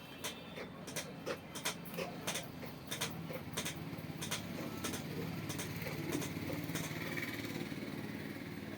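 Blacksmith's hammer striking iron in a quick, even rhythm of about three light blows a second, stopping about seven seconds in, with a low steady rumble growing underneath in the second half.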